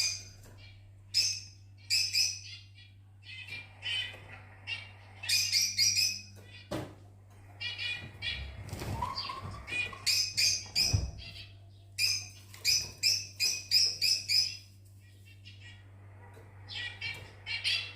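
Fischer's lovebirds chirping in repeated short bursts of high, shrill calls, over a steady low hum.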